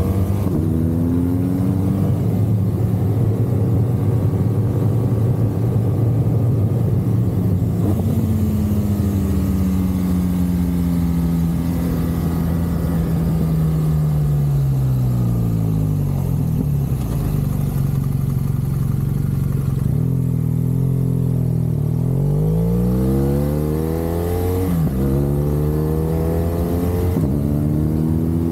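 BMW R1200 GSA motorcycle's flat-twin boxer engine running under way, its note rising and falling with the throttle. The pitch holds steady for several seconds, then falls for several seconds as the bike slows, and climbs again in stretches through the last third, with a quick dip and recovery near the end.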